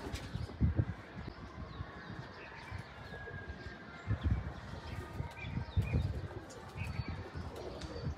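Domestic pigeons cooing in a loft, low muffled coos swelling a few times, with faint higher chirps in between.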